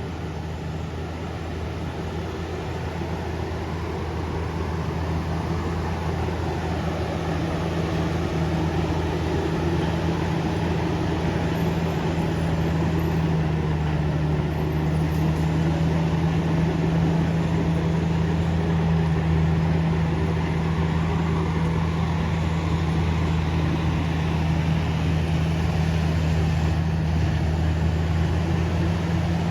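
Komatsu D68ESS bulldozer's diesel engine running steadily under load as it drags a heavy log. It grows louder over the first several seconds, then holds an even pitch.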